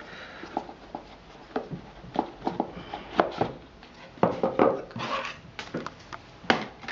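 Handling of a new smartphone and its packaging: an irregular run of light clicks, taps and rustles as it is turned over and set down, with a louder click near the end.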